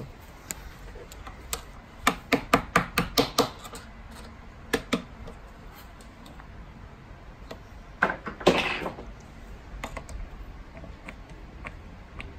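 A mallet tapping the handle of a flathead screwdriver wedged under the headset ring of an e-scooter stem, driving it in to pry the headset loose: single taps, then a quick run of about eight taps around two seconds in. Near eight seconds in comes a louder, longer clatter of metal scraping against metal.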